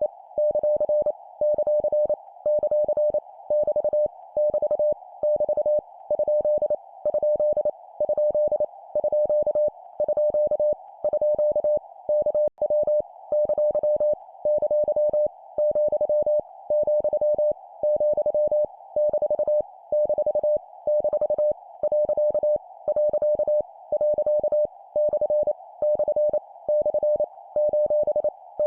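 Morse code (CW) at 25 words per minute: a single mid-pitched tone keyed on and off in dots and dashes over a steady band of hiss. The code sends punctuation characters, each repeated three times, in short groups with brief gaps between them.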